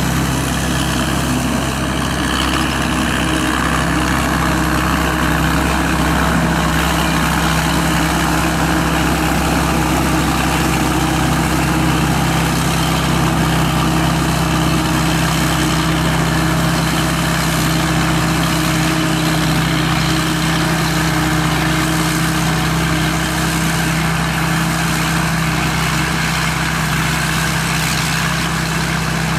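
SAK KM-D combine harvester running steadily, its 260-horsepower turbocharged engine and machinery making an even, unbroken drone.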